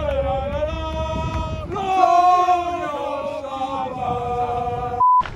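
Group of men chanting loudly in unison, holding long notes that slide up and down together. A short, high, pure beep cuts in near the end.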